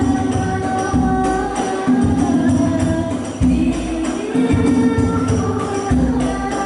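Sholawat music played through a PA: rebana frame drums and jingles beating a steady rhythm under held sung melody lines.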